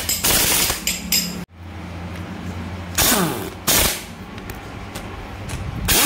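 Impact wrench hammering in short rattling bursts as it runs down and tightens bolts on a motorcycle engine's cylinder head: one burst in the first second, then two more about three and three and a half seconds in.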